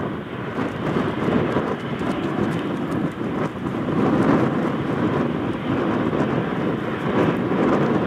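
Airliner engine noise, a steady rushing rumble that slowly grows louder.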